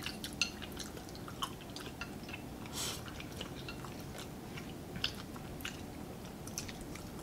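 Close-miked chewing of spaghetti carbonara, with many short wet mouth clicks and a brief hiss about three seconds in.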